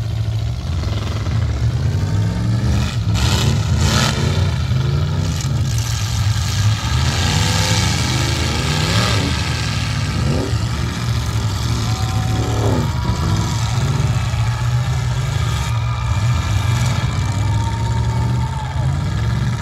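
Several demolition derby cars' engines running and revving hard, their pitch repeatedly rising and falling over a steady low drone. A few sharp crashes come a few seconds in and again later.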